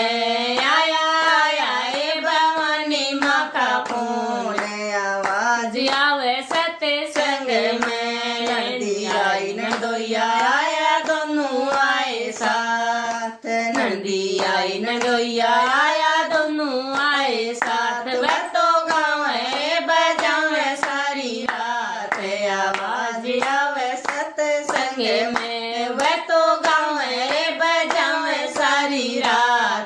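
A devotional bhajan sung by voice, with hand clapping keeping the beat.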